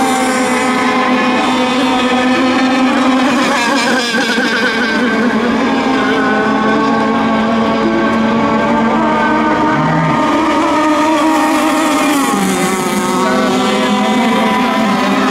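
Radio-controlled racing boats running laps, several motors whining at once at slightly different pitches that waver and shift as the boats go around the course.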